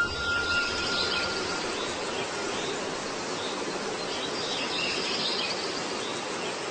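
Outdoor ambience: a steady hiss with faint high chirps over it, and a thin steady tone that fades out in the first couple of seconds.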